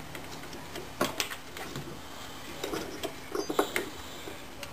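Small metal screws and fittings being handled and fitted by hand to a fuel pressure regulator adapter: irregular light clicks and taps, a few about a second in and a denser run of them between about two and a half and four seconds in.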